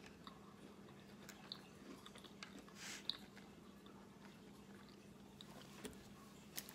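Faint chewing of a mouthful of Lunchables ham, cheddar and crackers with the mouth closed, with scattered small mouth clicks and a short, louder smack about three seconds in.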